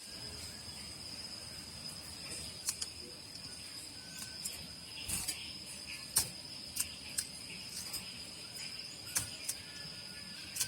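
Steady high-pitched insect drone, with short sharp ticks several times over it.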